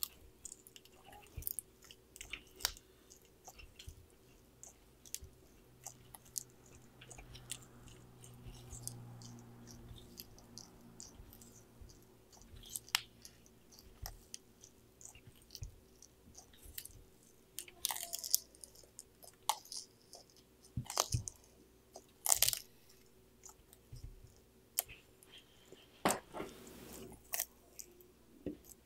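Sulcata tortoise biting and chewing leafy greens such as kale: irregular sharp crunches and clicks as its beak tears and mashes the leaves, a few louder bites in the second half.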